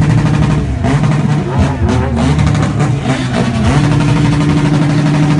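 Engine rumbling through an open straight exhaust pipe with no muffler, running steadily. People's voices are heard over it for the first few seconds.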